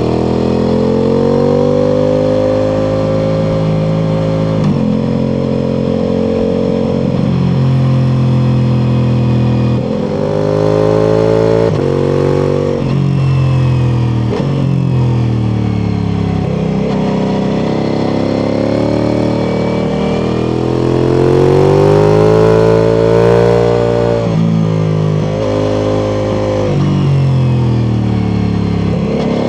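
Ducati Multistrada V4 Pikes Peak's V4 engine through an Akrapovič exhaust, riding on the road. The pitch climbs and falls over and over with the throttle, with sudden breaks every few seconds as it shifts gear.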